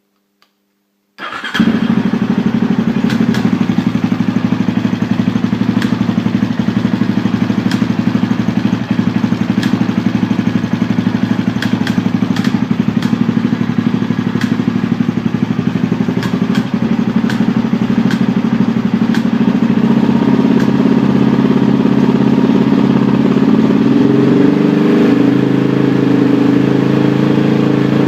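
KTM 640 LC4 single-cylinder four-stroke engine starting about a second in and then idling, with occasional sharp ticks over the idle; its idle speed rises slightly near the end. Somewhere in it is an odd noise that the owner cannot place and thinks may be something electrical.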